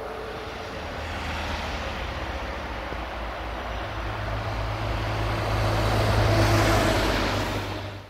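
A motor vehicle approaching: a steady low engine hum with rushing rolling noise grows louder over several seconds, then cuts off abruptly.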